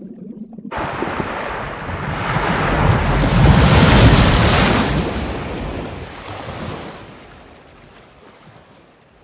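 Sea surf breaking and washing up a shore. The rush of water starts just under a second in, swells to its loudest about four seconds in, then slowly fades away.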